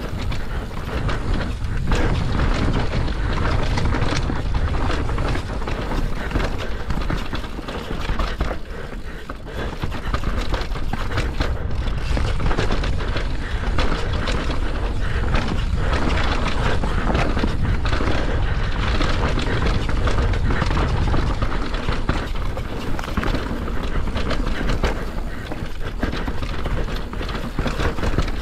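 Mountain bike riding fast down a rough dirt trail: steady low wind buffeting on the microphone, mixed with constant clatter and knocks from the tyres and bike over the ground.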